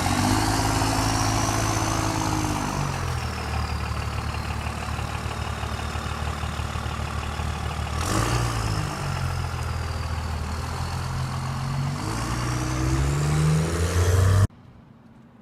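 24-valve Cummins turbo-diesel pickup accelerating through its new exhaust stack, revs climbing and dropping back with gear changes, with a high turbo whistle rising and falling over the engine. The sound cuts off abruptly near the end.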